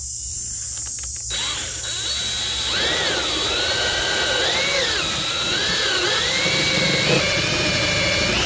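Cordless drill running a step bit through a plastic washing machine drain pan. It grows louder and rougher about a second in, then carries a whine that wavers up and down in pitch as the bit works.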